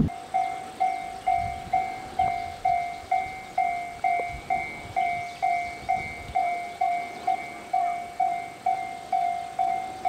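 Japanese railroad crossing warning alarm, the Tobu 'Tojo-type' electronic tone, starting right at the beginning and ringing steadily at about two strokes a second, each stroke a single pitch that fades quickly: the crossing is active, warning of an approaching train.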